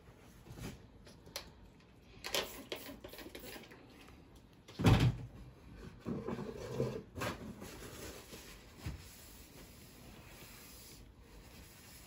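Handling noises: scattered light clicks and rustles, with one loud knock about five seconds in, like something bumping a cupboard or container.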